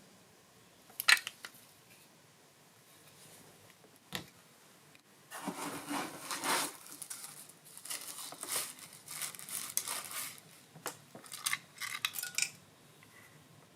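Handling noise from unpacking: a sharp click about a second in, another near four seconds, then several seconds of irregular rustling and light clattering.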